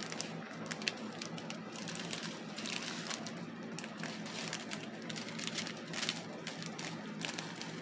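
Thin plastic packets of diamond painting drills crinkling and rustling as they are handled, a steady run of small crackles and clicks.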